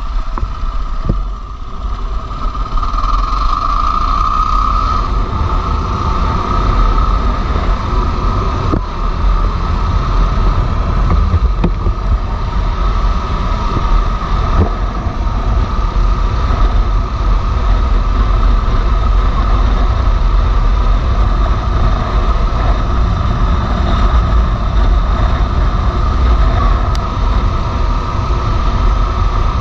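Motorcycle under way on a gravel road: engine running at a steady cruise under heavy wind and tyre noise, with a few sharp knocks from the road.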